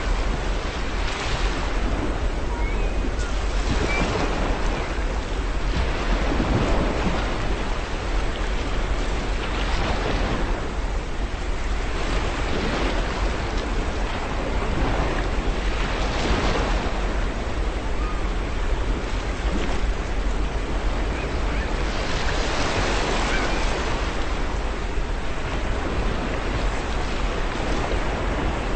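Ocean waves breaking and washing on a shore in a steady rushing surf that swells every few seconds, with a few faint seagull cries in the first seconds.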